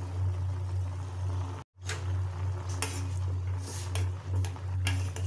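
A steel pot of pasta boiling, with water bubbling, while a spoon stirs it and clinks a few times against the side of the pot in the second half. A steady low hum runs underneath, and the sound cuts out briefly just before two seconds in.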